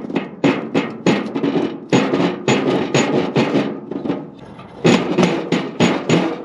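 Rusted cowl vent on a 1940s Chevy truck cab being forced open: a run of sharp metal bangs and scrapes, about three a second, with a short pause about four seconds in.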